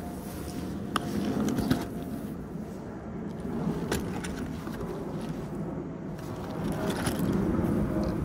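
Nylon rain gear rustling and scraping as it is handled and stuffed into a motorcycle side bag, with a few sharp clicks and knocks about one, two and four seconds in.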